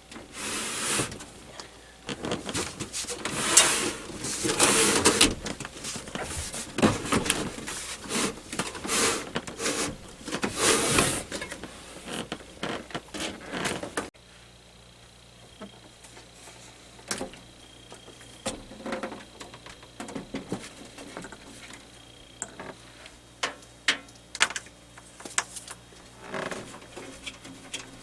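Handling noise from unplugging cables and moving a desktop computer tower: irregular rustling, scraping and knocks, then quieter scattered clicks and taps over a low hum.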